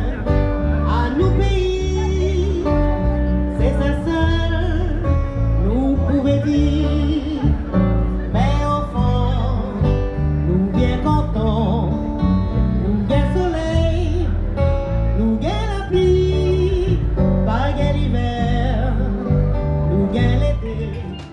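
A woman singing a slow melody to her own acoustic guitar, backed by a second guitarist, over a strong low bass line.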